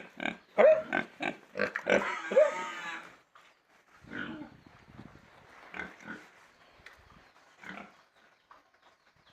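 Pigs grunting in quick succession, then a longer, louder squeal about two seconds in, followed by scattered quieter grunts.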